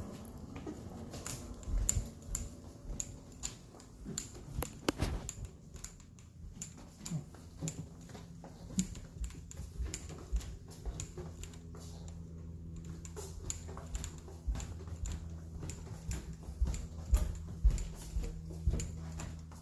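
A cat eating wet cat food: a quick, irregular run of small wet clicks and smacks from chewing and licking, with a faint steady low hum underneath.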